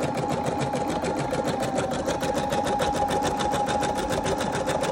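Embroidery machine stitching out a design through a quilted pot holder: a rapid, even rhythm of needle strokes over a steady motor hum.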